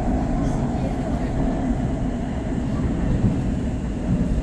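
Warsaw Metro train running, heard from inside the passenger car: a steady rumble.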